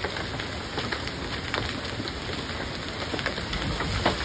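Heavy rain pouring down in a severe thunderstorm, with large hailstones striking hard surfaces in scattered sharp knocks, the loudest near the end.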